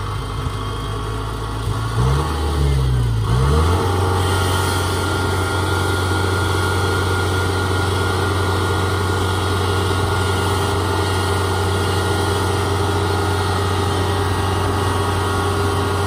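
Kubota DC-70 combine harvester's diesel engine running as it drives across a makeshift bridge. About two seconds in, the engine speed swings up and down, then it settles into a steady, louder drone.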